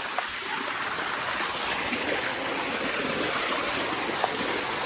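A waterfall's water rushing steadily over the rock, heard from within the cascade, with one small click a fraction of a second in.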